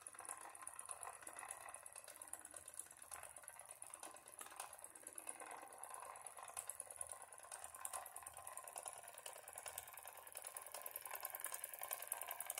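Wilesco D3 toy live steam engine running under steam, its small brass cylinder giving a quick, even, faint chuffing over a light hiss of steam. The beat grows a little louder near the end.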